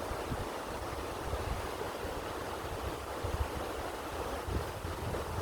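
Wind gusting over the microphone, with an uneven low rumble over a steady rushing hiss.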